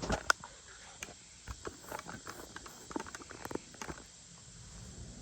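Faint, irregular clicks and knocks, a few a second, over low hiss.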